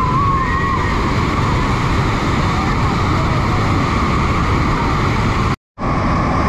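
Bridal Veil Falls pouring onto the rocks close by: a loud, steady rush of falling water and spray. It breaks off for a split second about five and a half seconds in.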